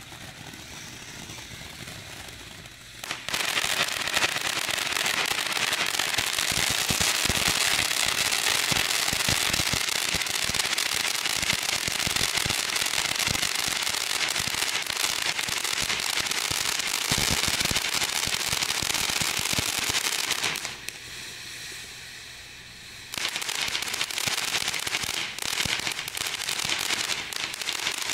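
Ground fountain fireworks spraying sparks: a loud, steady hiss thick with fine crackling. It starts about three seconds in, drops away for a couple of seconds near the end, then starts again.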